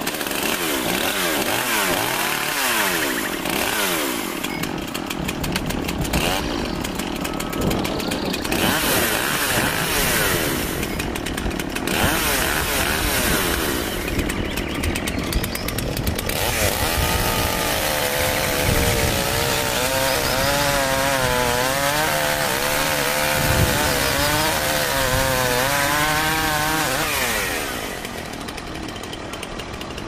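Chainsaw running, its engine note wavering up and down as it works, then dropping lower near the end.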